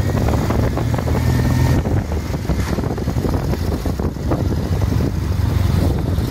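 Engine of an open vintage military vehicle running steadily at low road speed, with road rumble and wind on the microphone.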